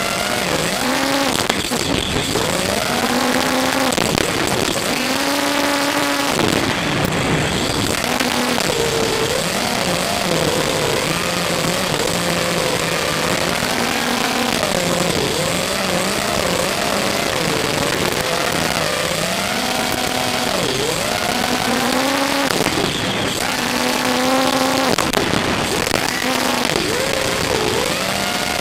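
5-inch FPV quadcopter's 2205 2300 kV brushless motors and props whining in flight, the pitch rising and falling constantly with the throttle.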